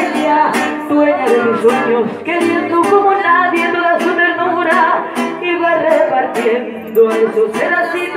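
Live mariachi band: a woman sings into a microphone over steadily strummed guitars, and the trumpets come in near the end.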